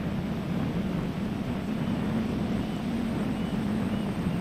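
Electric RC plane's motor and propeller droning steadily, its pitch wavering slightly.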